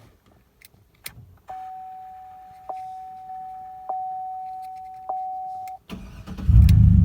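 A couple of clicks from the key, then the dashboard warning chime pinging steadily for about four seconds. Near the end the Trailblazer SS's 6.0-litre LS2 V8 cranks and fires, running on loudly.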